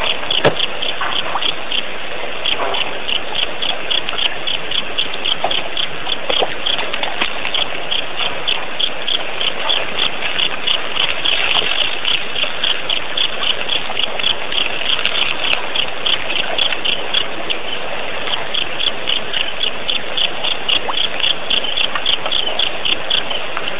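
Night-time chorus of calling animals, most likely insects, at a waterhole: a steady high-pitched pulsing that repeats a few times a second.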